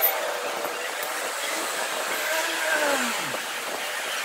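Steel spokes scraping and rubbing against one another and the hub flange as they are laced into a 72-spoke motorcycle wheel, with short squeaky metal glides, one falling squeal about three seconds in, over a steady rushing background noise.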